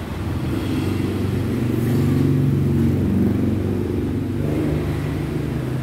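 A motor vehicle's engine passing close by, its low note swelling to a peak about two to three seconds in and then fading.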